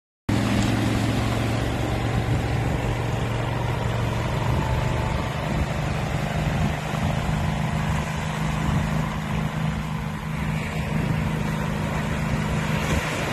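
Engine of an amphibious rigid-hulled inflatable boat running at a steady pitch as the boat drives on its wheels across wet sand, over a hiss of wind and surf. Near the end there is a louder rush of water as the boat rolls into the breaking waves.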